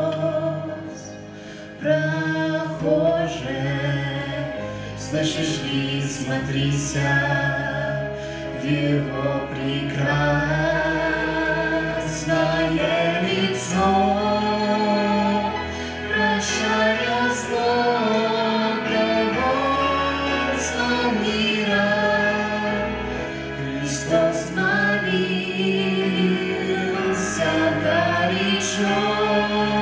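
Music: a sung song, with a wavering singing voice over an accompaniment of held low bass notes that change every few seconds.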